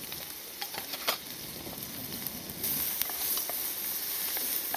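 Food sizzling in a pan over a campfire, a steady hiss with small pops and crackles, growing louder about two and a half seconds in.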